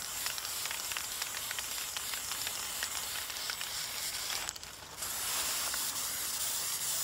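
Aerosol spray-paint can hissing steadily as it sprays. The spray stops briefly about four and a half seconds in, then starts again.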